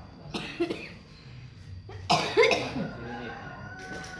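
A person coughing: one short cough about half a second in, then a louder, harsher bout of two or three coughs about two seconds in.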